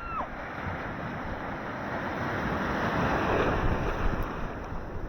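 Ocean surf: a wave rushing in, building to its loudest about two-thirds through and then easing off, with wind buffeting the microphone.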